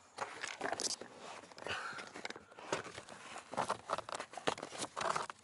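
Irregular rustling, crinkling and scraping of a new pleated Motorcraft FP78 cabin air filter being handled and pushed up into its housing, with short knocks against the surrounding plastic.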